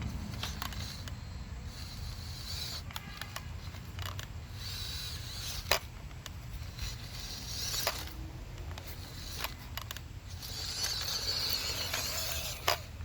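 Small 260 brushed electric motor and gearbox of a WPL C14 RC rock crawler whining in short bursts as it is driven over rough ground, with a few sharp knocks.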